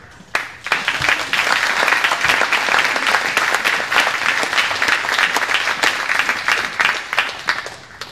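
Audience applauding, with dense clapping that starts suddenly and dies away near the end.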